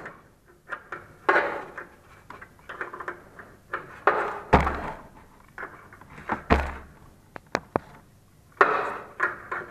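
Scattered metal clicks, knocks and short scrapes of a spanner and hands working the top-plate nuts of a scooter's front shock absorber. Two dull thumps come about halfway through, and a few sharp clicks follow soon after.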